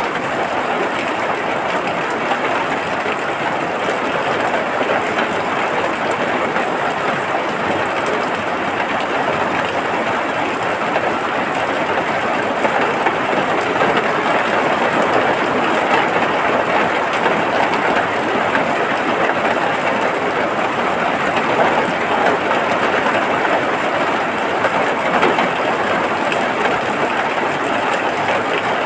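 Steady heavy rain, an even, dense hiss with a few slightly louder spatters.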